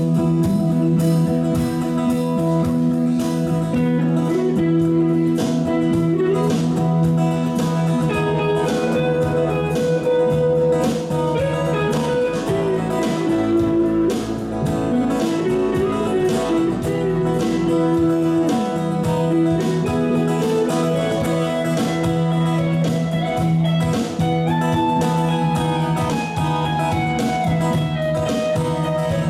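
Live band playing an instrumental passage with no singing: acoustic and electric guitars over bass guitar and drums, keeping a steady beat while a guitar picks out a melody.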